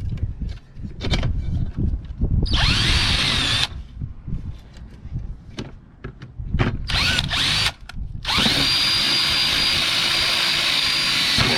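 Cordless drill running in two short bursts, its motor whine rising as it spins up, then running steadily from about three-quarters of the way in. Handling knocks come between the bursts.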